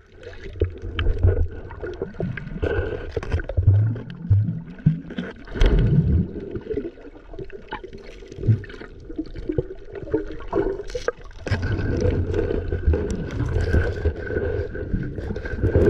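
Muffled water movement heard with the camera under the water, with scattered clicks and knocks and low rumbling from a hand moving through seagrass.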